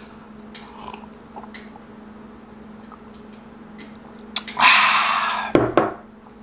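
A man drinking water from a glass: faint swallowing sounds, then a loud breathy exhale of relief lasting about a second, about four and a half seconds in, followed by a short knock as the glass is set down. A steady low hum runs underneath.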